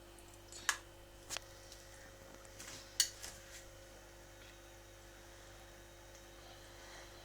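Steady low hum with a few short, sharp clicks, the loudest about a second in and about three seconds in.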